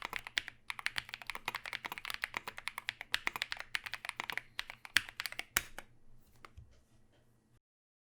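Typing on a Tofu 60% keyboard with Holy Panda tactile switches, SA-profile PBT keycaps and an aluminium plate: fast, steady keystrokes that thin out to a few scattered presses about five and a half seconds in, then stop.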